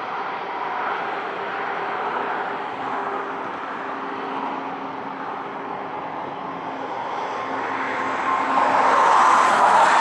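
Steady engine noise with a few held tones, growing louder about eight seconds in.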